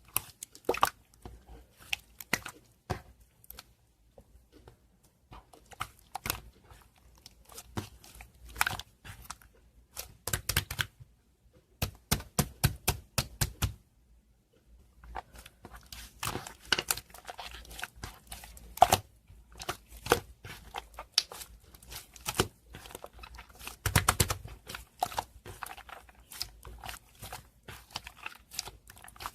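Two-layer slime being played with, making irregular sticky clicks and pops, with a quick run of rapid clicks about halfway through and a short pause just after.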